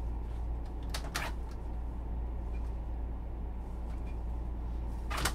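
A steady low hum with a few sharp knocks: two close together about a second in and one more near the end, like cupboard or door knocks.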